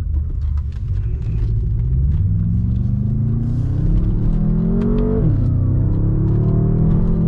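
BMW M5 F10's 4.4-litre twin-turbo V8, Stage 1 tuned, accelerating hard, heard from inside the cabin: the engine note climbs for about four seconds, drops sharply at a quick upshift of the dual-clutch gearbox about five seconds in, then climbs again.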